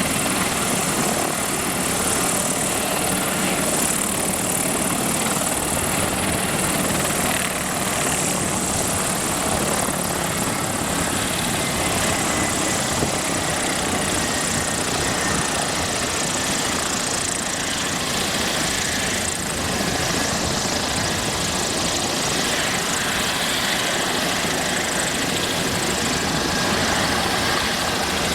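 Mi-28 attack helicopter's twin turboshaft engines and rotor running close by, a steady, loud noise with a high hiss and a faint thin whine.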